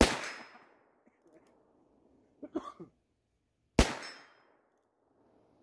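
Two gunshots about four seconds apart, each sharp and loud with a short echoing tail.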